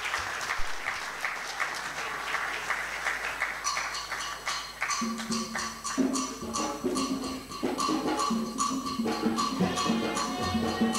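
Audience applause, then music with percussion and a steady beat that starts about four seconds in.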